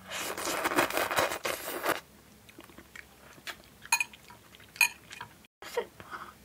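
A person slurping black-bean-sauce instant ramen noodles in one loud, noisy pull lasting about two seconds, then chewing with scattered wet mouth clicks and smacks.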